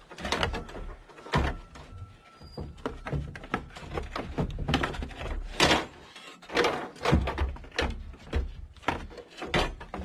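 Geo Tracker radiator being worked loose and lifted out of its mounts by hand: a string of irregular clunks, knocks and scrapes as it bumps against the surrounding parts.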